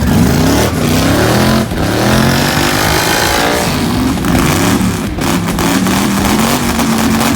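A loud car engine revving, its pitch climbing and dropping again several times.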